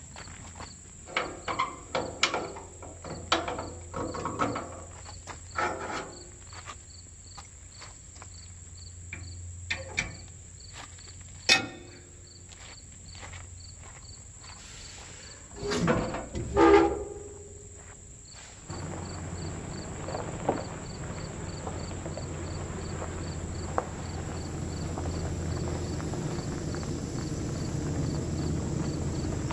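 Footsteps crunching on gravel for the first several seconds, then a few sharp knocks and two loud thumps about 16 s in. From about 19 s in, the Chevy S10 pickup's engine runs and grows steadily louder as the truck drives closer. Insects buzz steadily in the background.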